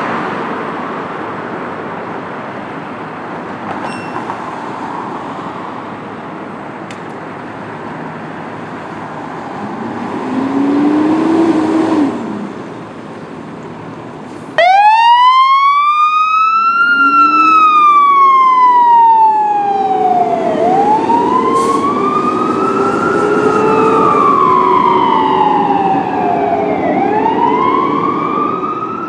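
Fire engine's diesel engine running as it pulls out, with a short low siren tone rising and falling about a third of the way in. About halfway through, its electronic siren starts suddenly and wails, sweeping slowly up and down every few seconds, with a lower siren tone wailing beneath it.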